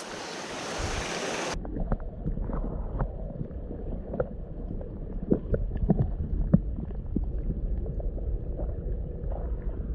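Rushing mountain stream water, which about a second and a half in turns suddenly muffled: a low rumble with scattered short gurgles and clicks.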